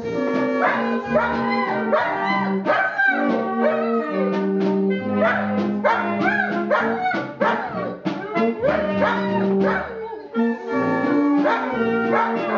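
A small brass band playing held notes, with a dog howling along over them in many short wails that rise and fall in pitch.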